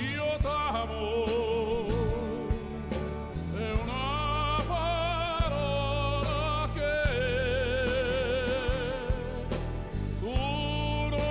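Music: a singer holds long notes with a wide vibrato over instrumental accompaniment.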